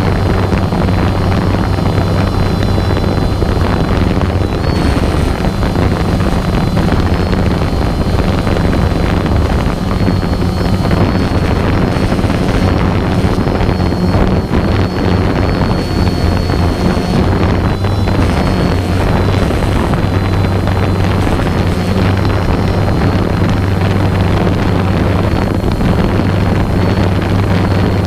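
A small engine running steadily at constant speed, with a high thin whine above its hum, and wind buffeting the microphone.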